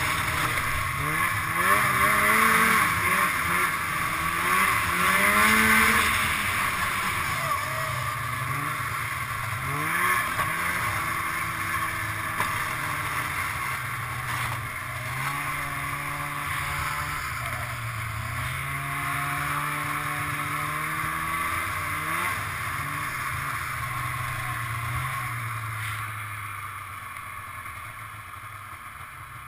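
Snowmobile engine running under the rider, its pitch rising and falling again and again as the throttle is worked, over a steady rush of wind and track noise. Near the end it eases off to a quieter, steady lower note.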